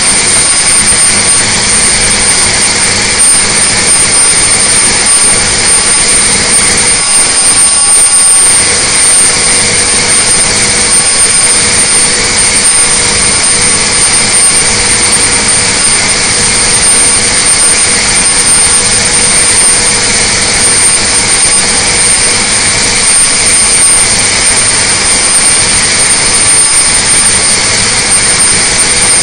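Detroit Diesel Series 60 inline-six turbo diesel running at full throttle and full load on an engine dynamometer, held steady near 2,075 rpm at about 600 hp. Loud, even engine noise with steady high-pitched whines over it.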